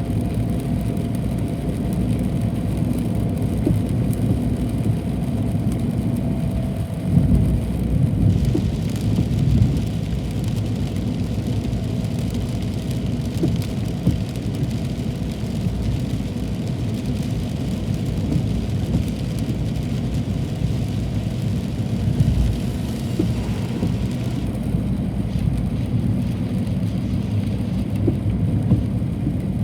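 Steady low rumble of a car driving in heavy rain, with the hiss of rain over it.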